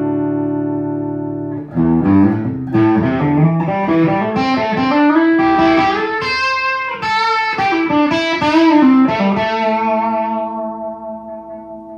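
Electric guitar played through an Orange Micro Dark Terror valve head on its stock ECC83 preamp tube into a Vox 2x12 cabinet, picked up by an iPhone microphone. A held chord rings, then a run of notes starts about two seconds in, and a final chord rings out and fades near the end.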